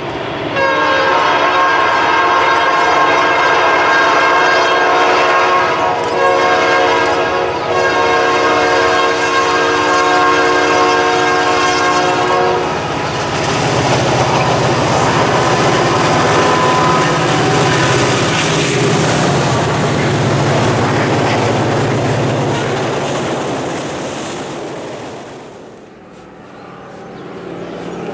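Norfolk Southern diesel freight locomotives' horn sounding long blasts with brief breaks for about twelve seconds. Then the low rumble of the engines and the rolling of the train as it passes, fading away about two seconds before the end.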